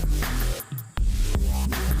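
Background electronic dance music with heavy bass notes and sharp percussive hits.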